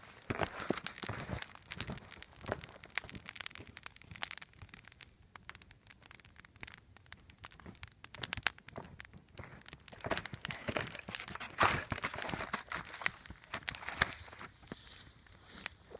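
Freshly lit campfire of twigs and small branches crackling, with many irregular sharp snaps.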